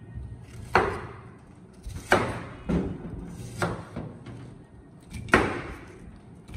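Kitchen knife chopping through an onion onto a wooden cutting board: five sharp, irregularly spaced knocks, the first and last the loudest.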